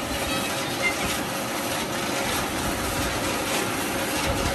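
Water gushing out from under a sandbag bund and churning in the pool below, a steady rushing noise.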